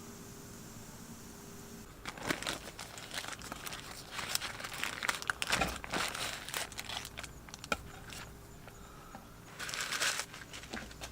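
Irregular crinkling and rustling handling noises, starting about two seconds in and running for several seconds, with another short burst near the end.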